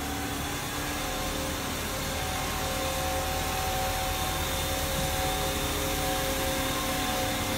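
XCMG water tanker truck spraying water onto the pavement: a steady hiss of spray over the truck's running engine, with a few steady hum tones and no change in level.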